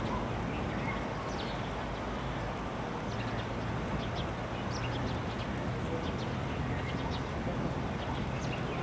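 Outdoor ambience: a steady background noise with a low hum, and faint, short high-pitched bird chirps scattered throughout.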